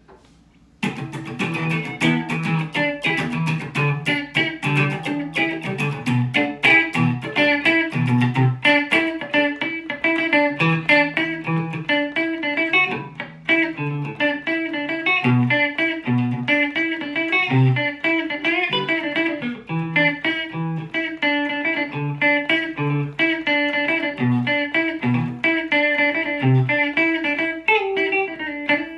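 Mexican-made Fender Stratocaster with Lace Sensor pickups played through an amp with the gain turned down: a fast, continuous run of picked single notes starting about a second in, ending on a held note.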